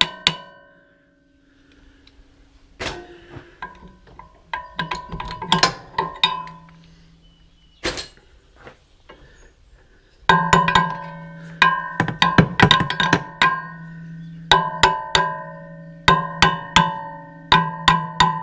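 Volleys of quick hammer blows on steel parts of a wood chipper's drive, each blow ringing like struck metal. A few scattered strikes come first, then steady volleys of four to six blows from about halfway through, as stuck parts are driven loose where the gear puller has run out of travel.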